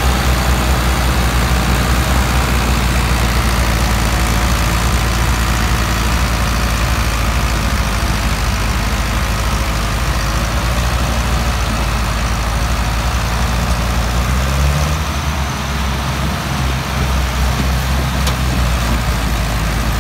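Ford 4610 and Massey Ferguson 165 tractors' diesel engines running hard together under load, pulling and pushing a loaded sugarcane trolley: a loud, steady engine drone. About fifteen seconds in the engine note briefly rises and shifts.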